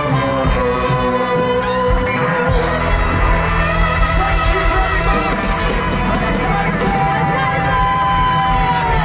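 Live band playing loud amplified music, with a long held note that slides down in pitch near the end.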